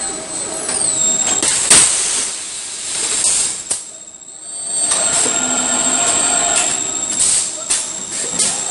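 Automated body-shop machinery running: industrial robots and clamping fixtures working on a car tailgate. There is a steady high-pitched whine that glides down about a second in, with sharp metallic clanks and clicks and a short quieter lull in the middle.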